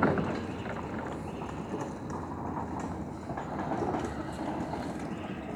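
Continuous clattering like the knock of train wheels, as if a train were passing close by.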